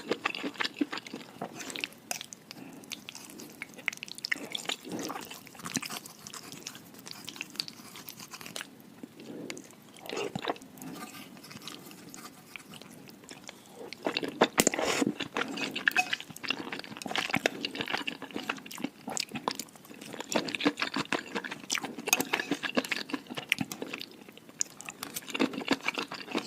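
Close-up chewing and crunching of food, a dense run of small irregular crackles and clicks, with busier spells of crunching in the middle and toward the end.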